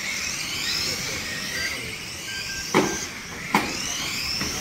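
Several electric radio-controlled stock cars racing together, their motor whines rising and falling as they speed up and slow down. About three seconds in come two sharp knocks of impacts.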